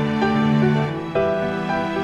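Background music: slow, sustained notes over a held bass, with a chord change about a second in.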